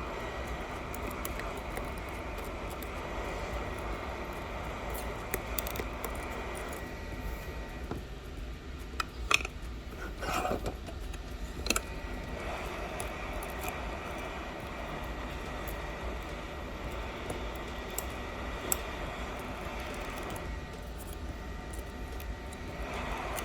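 Hot air rework station blowing steadily, a hiss with a thin high whine, as it heats the iPhone 11 back glass; a few light clicks come through around the middle.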